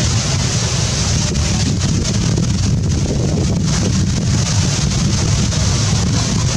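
Wind buffeting the camera microphone: a loud, steady low rumble with a hiss above it.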